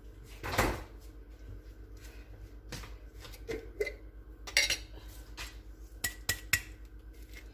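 Kitchen things being handled on the counter: a scattering of clinks and knocks of dishes and containers. The loudest is a clatter just under a second in, and three sharp clicks come close together about six seconds in.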